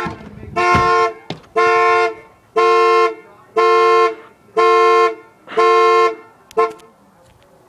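Car alarm sounding the car's horn in a steady pulse, about one blast a second, six blasts, then it stops.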